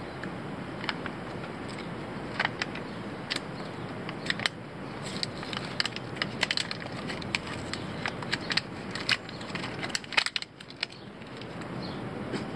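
Irregular small clicks and crackles from small parts being handled by hand, with a quick cluster of clicks about ten seconds in.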